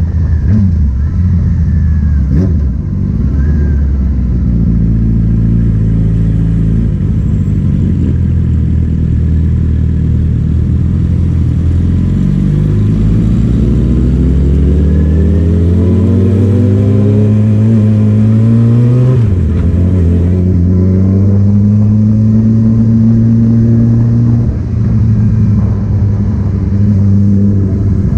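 A loud vehicle engine pulling under acceleration. Its pitch climbs steadily for several seconds, drops suddenly at a gear change about two-thirds of the way in, then rises again.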